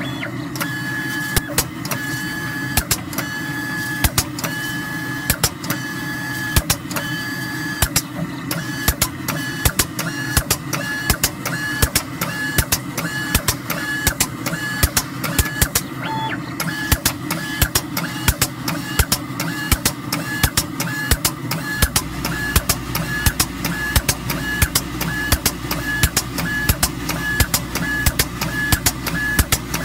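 FSCC06 selective spray coater at work, its gantry moving the spray head over a circuit board: a steady mechanical whir with many regular clicks and a pitched tone switching on and off, in longer pulses for the first few seconds and then in short regular pulses. A low hum joins about two-thirds of the way through.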